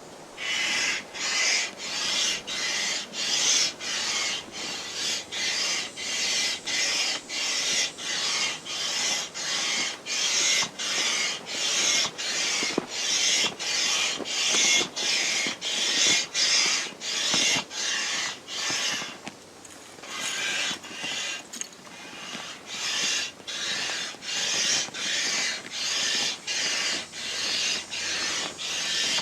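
Manual air pump working in steady strokes, a rushing hiss of air about twice a second as the vinyl inflatable wolf fills, with a short pause about two-thirds of the way through.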